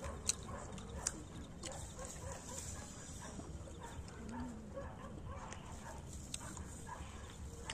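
Close-miked mukbang eating sounds: people chewing and smacking as they eat rice and curried meat by hand, a stream of small wet clicks, with two sharp clicks in the first second or so.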